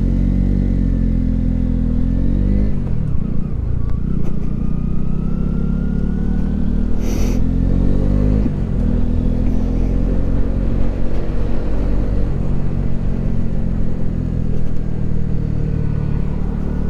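Honda CB125R's single-cylinder 125 cc engine accelerating through the gears, its pitch climbing and then dropping at each shift, about three seconds and eight and a half seconds in. A brief hiss about seven seconds in.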